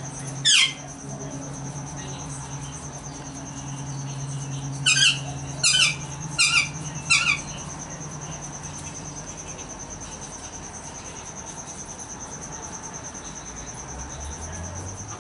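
Cockatiel calls: one sharp falling chirp about half a second in, then four quick falling chirps in a row about five seconds in, over a steady high-pitched trill.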